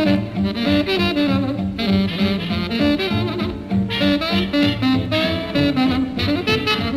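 1937 swing-era big band recording: a jazz band playing a melodic passage over a steady swing beat of bass and drums.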